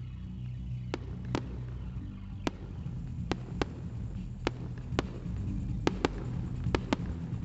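Fireworks going off in about a dozen sharp, irregularly spaced bangs over a steady low rumble.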